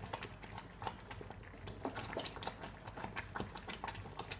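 Halwa bubbling and spattering in a pot as it is stirred with a wooden spoon, a steady run of small irregular pops and ticks: the sugar syrup boiling down on high heat.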